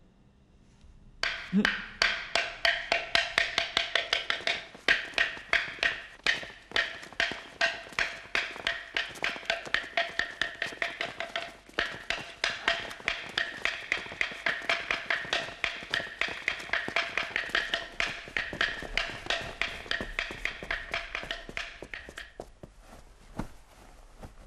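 Wooden fish (muyu) temple block struck in a fast, even rhythm of about four strokes a second, each stroke with a hollow pitched ring. It starts about a second in, grows quieter in the second half and stops shortly before the end.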